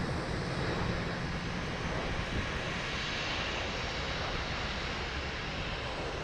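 Jet engine noise from a Southwest Airlines Boeing 737 landing, heard from a distance as a steady, even rumble and hiss.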